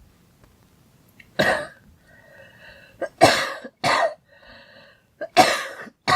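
A girl coughing repeatedly, about six coughs, some in quick pairs. Between the coughs she draws a long, high-pitched breath with a voiced tone.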